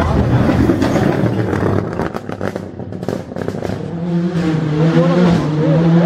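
Toyota Corolla WRC's turbocharged four-cylinder rally engine under hard throttle, with a quick run of sharp crackles and pops about two seconds in, then a steady engine note building in level from about four seconds in.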